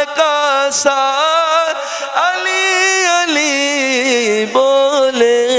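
A male naat singer's voice through a microphone, sung without words in one long melismatic passage of held, ornamented notes. The line rises to a higher held note about two seconds in, then winds back down.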